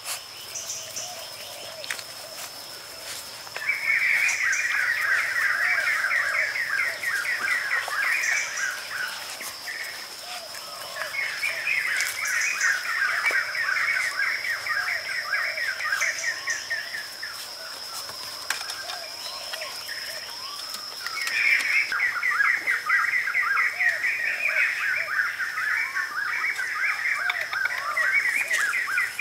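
Outdoor nature ambience: a steady high-pitched insect drone, with three long bouts of fast chirping calls.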